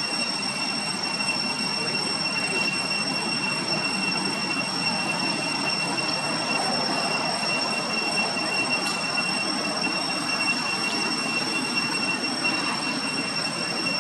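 Steady background noise with an unbroken, high-pitched whine held at one pitch over a constant hiss, and a faint tick or two.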